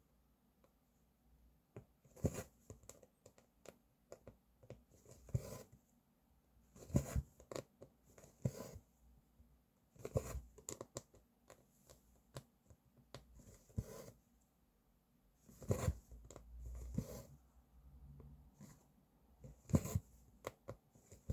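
Embroidery thread being pulled through cross-stitch fabric, short rasping draws coming every second or two at an uneven pace, with small handling sounds between them.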